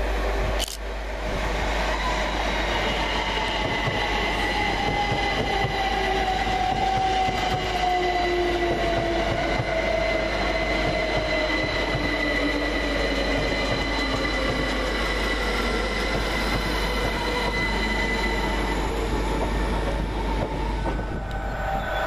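Two coupled Class 387 Electrostar electric multiple units arriving and slowing to a stop, their electric traction whine falling slowly in pitch as they brake, over the steady rush of wheels on rail.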